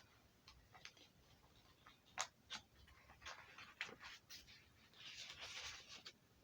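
Near silence with faint scattered ticks and a soft breathy hiss about five seconds in: a golden retriever puppy panting.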